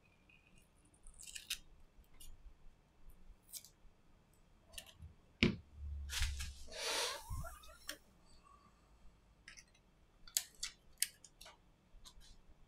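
Small clicks, taps and scrapes of hands handling a smartphone's display frame and flex cable with a plastic spudger. A knock about five seconds in, the loudest moment, is followed by a couple of seconds of scraping.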